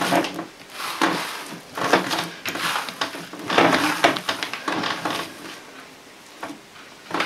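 Hands kneading a large ball of yeast dough with raisins for Easter paska on an oilcloth table cover: irregular pressing and slapping sounds, about one or two a second, growing quieter after about five seconds.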